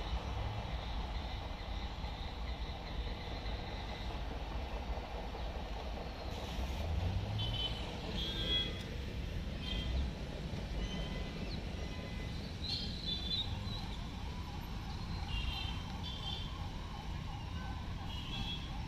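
Steady low rumble, with short high chirps now and then from about six seconds in.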